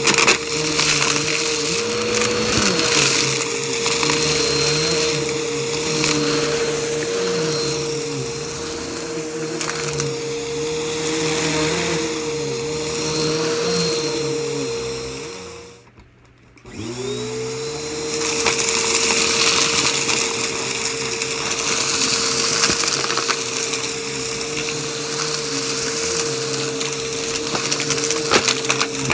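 Upright vacuum cleaner running on carpet with its brushroll spinning, a steady motor whine over the rush of air as it is pushed through a pile of dust, lint and debris that crackles and clicks as it is picked up. About halfway through, the motor is switched off and winds down to near quiet, then starts again about a second later, its whine rising back to speed.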